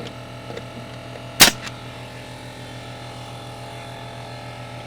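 A nail gun fires once, a single sharp crack about a second and a half in, driving a nail into the cabin's wooden fascia bracing. A steady low motor hum runs underneath.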